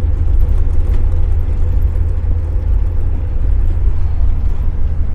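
Volkswagen Kombi van driving along at a steady speed: a constant low engine and road drone.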